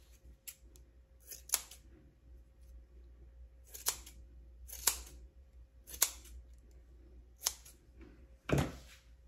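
Scissors snipping through a thick hank of braiding hair to cut it in half: about seven separate sharp snips, a second or more apart.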